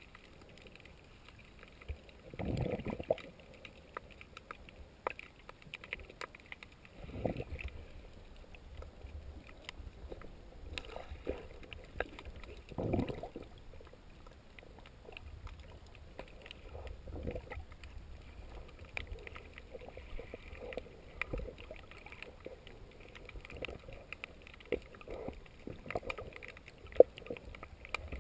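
Underwater sound heard through a submerged camera: a few muffled low whooshes of water moving against it, over a faint, steady crackle of small clicks.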